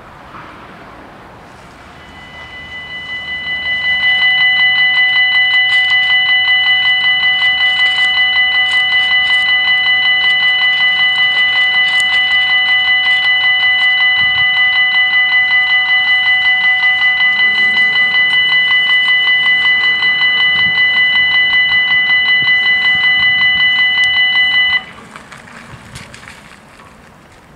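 Electronic warning bells of a Belgian level crossing ringing as the crossing closes for an approaching train. The ringing swells up over about two seconds, rings loudly and steadily in a fast pulsing rhythm, then cuts off suddenly a few seconds before the end, by which time the barriers are down.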